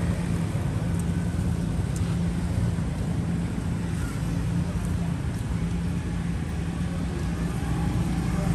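Steady low engine-like rumble with a constant hum.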